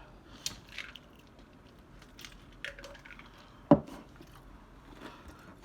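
Scattered small clicks, taps and wet mouth sounds of eating at a table, with one louder knock a little past the middle.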